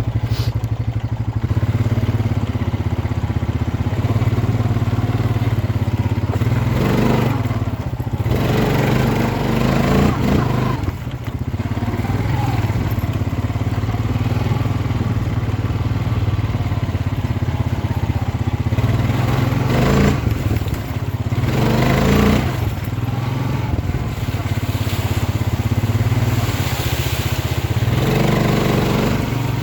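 ATV engine running steadily under way, swelling louder several times as the throttle is opened.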